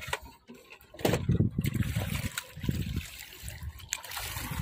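Shallow water trickling and splashing, with uneven low thumps starting about a second in.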